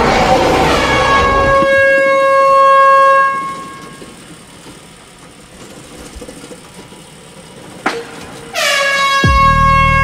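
Truck air horn sound effect, sounding twice: a long blast that fades out after about three seconds, then a second blast starting near the end with a brief drop in pitch, joined by a low rumble.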